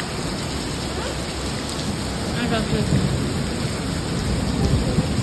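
Heavy rain pouring down steadily in a storm, with a low rumble underneath that grows stronger partway through.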